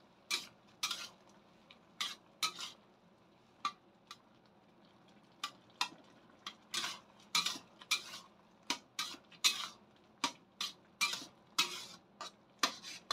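Metal ladle scraping and knocking against a metal wok while stirring a wet tomato-and-egg stir-fry, in short irregular strokes with a brief pause partway through and quicker strokes in the second half. This is the final brief stir of the finished dish before it comes off the heat.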